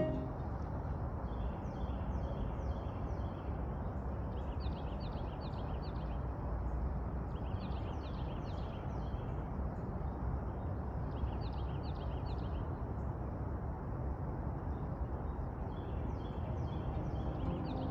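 Birds chirping outdoors in short bursts of quick high notes every few seconds, over a steady low rumble of outdoor background noise.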